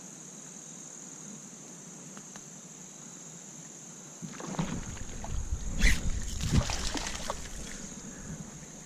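Insects trilling steadily on one high pitch. From about four seconds in, a few seconds of rumbling, rustling noise with some clicks close to the microphone, fading out near the end.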